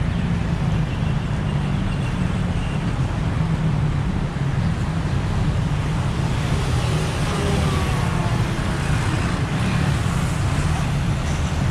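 Steady low rumble of road traffic, with faint voices in the background.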